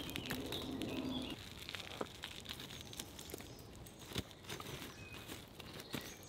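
Wood campfire crackling with scattered sharp pops, with faint bird chirps now and then.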